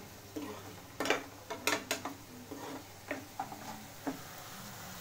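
Spatula scraping and knocking against a kadai while stirring chopped onion, garlic and green chillies frying in oil, with a faint steady sizzle underneath. The spatula strokes come as irregular clicks and scrapes, several a second at times, easing off near the end.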